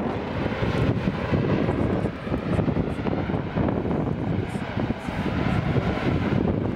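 Basaltic lava fountain at an eruptive fissure heard at close range: a continuous, loud rushing noise of gas jetting out with the spray of lava, rising and falling unevenly.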